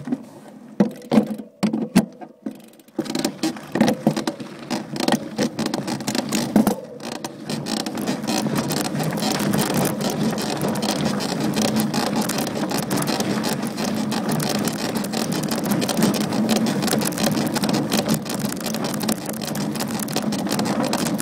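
Trek Top Fuel 9.9 SSL full-suspension mountain bike ridden on a dirt trail: a few sharp creaking clicks in the first three seconds, then steady tyre noise on loose dirt with many small rattling clicks through it.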